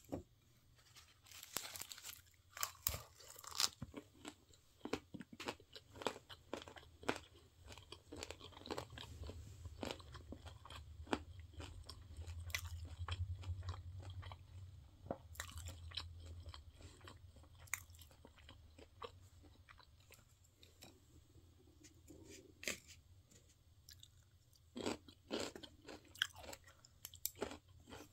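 Close-miked chewing of a bite of spicy stir-fried pork cartilage wrapped in a perilla leaf with rice, the cartilage crunching between the teeth in irregular crunches, thickest near the start and again near the end.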